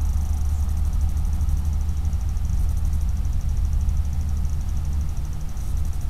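Steady low hum with a faint, fast-flickering high whine: the self-noise of a trail camera's built-in microphone and electronics, with no animal sound standing out.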